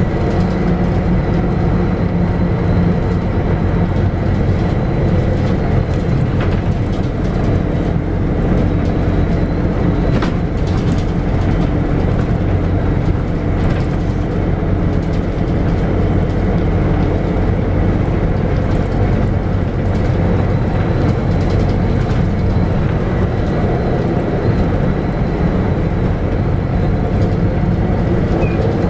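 Scania DC9 nine-litre six-cylinder diesel of a Scania K94UB bus running steadily while the bus is under way, heard from inside the cabin as a low engine drone over road noise. There are a couple of brief clicks about six and ten seconds in.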